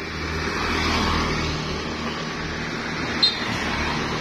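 Road traffic: a motor vehicle passing close by, its engine and tyre noise swelling about a second in and then holding steady. A short sharp click comes about three seconds in.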